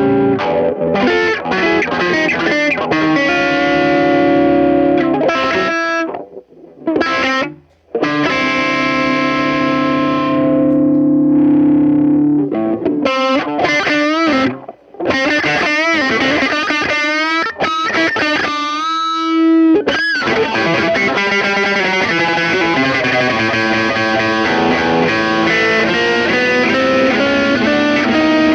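Squier Stratocaster played with overdrive through a Peavey Backstage Plus amp: distorted single-note lines and held chords, with a few notes wavering in pitch near the middle. The playing stops briefly about six seconds in and again around fifteen seconds.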